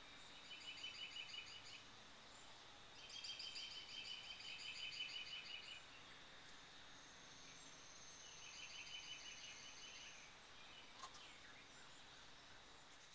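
Chickadees calling near the birdhouse: three bursts of rapid, evenly repeated high notes, the longest about two and a half seconds. A thin steady high tone sounds for a few seconds in the middle, and a single click comes near the end.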